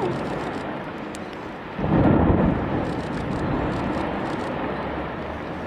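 Storm noise: a steady rushing haze, with a louder rumble of thunder starting about two seconds in and lasting about a second.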